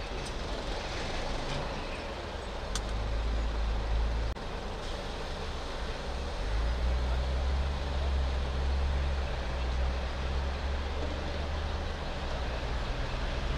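Steady low rumble of vehicle engines running, with a low hum that shifts abruptly about four and six seconds in, and one sharp click near three seconds.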